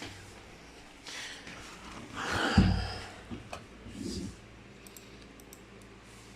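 Handling and shuffling noises with a dull thump, then a run of faint light clicks near the end.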